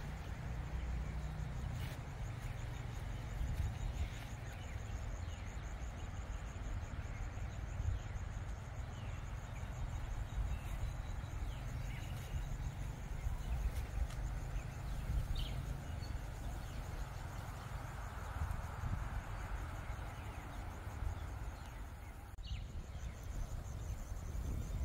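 Outdoor ambience: a steady low rumble, with a few faint bird calls now and then.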